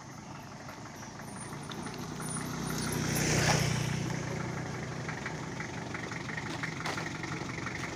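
Mitsubishi L300 pickup truck's engine running as it drives up, getting louder to a peak about three and a half seconds in, then idling steadily.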